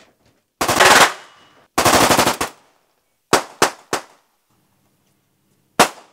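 Guns firing in the raw on-set recording: two short bursts of automatic fire, then three quick single shots and one last shot near the end.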